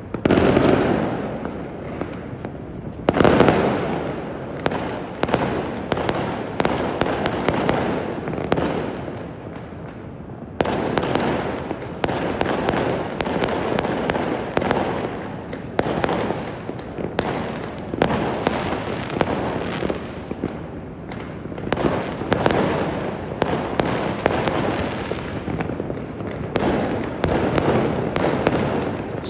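Fireworks going off in a near-continuous barrage of sharp bangs, each one fading out. The two loudest bangs come right at the start and about three seconds in, with a short lull about a third of the way through.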